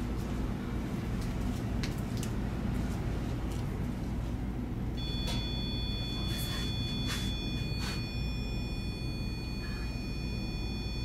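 A steady low hum, joined about five seconds in by a steady high-pitched electronic whine of several pitches that holds on, with a few faint knocks soon after.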